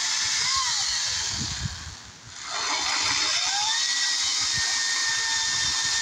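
Ryobi 40-volt cordless (battery electric) chainsaw cutting through a log: a steady high-pitched electric motor whine with the chain rasping through wood. About two seconds in it briefly cuts out, then spins back up, its pitch rising, and runs on.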